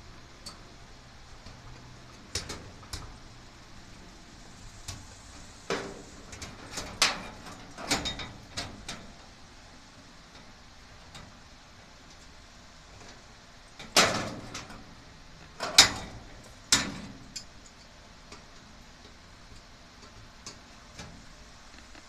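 Irregular knocks, clicks and clanks of metal garage door hardware being handled and worked by hand. A cluster of smaller knocks comes in the first part, and the three loudest knocks just past the middle.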